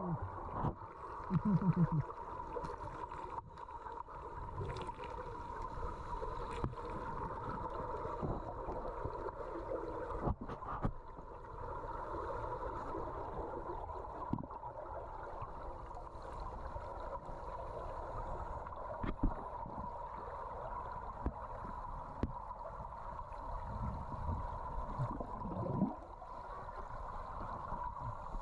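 Muffled underwater ambience heard through a GoPro's waterproof housing: a steady hiss with a constant hum and low rumble, broken by scattered faint clicks and knocks. A brief low pitched sound comes about a second and a half in, and another near the end.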